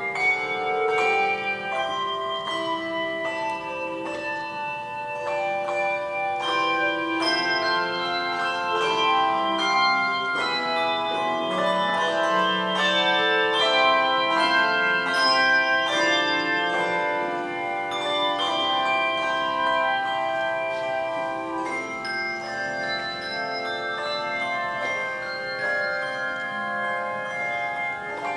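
Handbell choir ringing a carol on brass handbells: many struck notes, several sounding at once and left to ring on into each other, forming a melody with chords.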